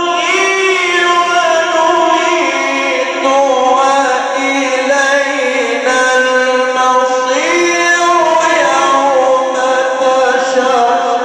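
A male Quran reciter's voice in melodic tajweed recitation, holding long ornamented notes that glide and step between pitches.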